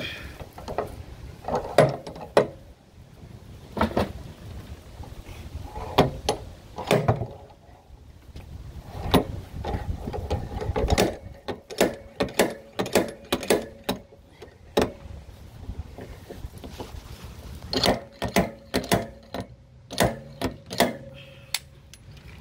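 Electric stud-welder dent puller's pulling tool being hooked onto welded studs and worked against a thick steel panel. Irregular metal clicks and clanks, with dense runs of quick clicks, some ringing briefly.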